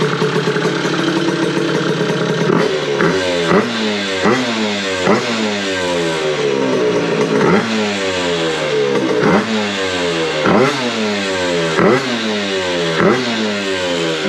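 Yamaha Aerox two-stroke scooter engine, fitted with a Smart Carb carburettor, idling and then blipped on the throttle over and over from about two and a half seconds in, each rev climbing sharply and dropping back. The carb is running well out of the box with no adjustment, and the throttle picks up instantly.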